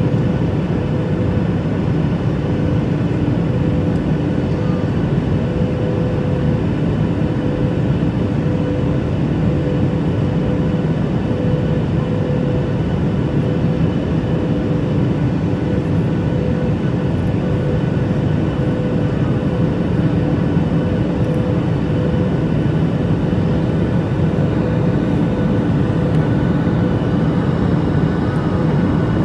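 Steady engine and airflow noise inside the cabin of a Boeing 737 MAX 8 climbing after takeoff, from its CFM LEAP-1B turbofans, with a steady hum running through it.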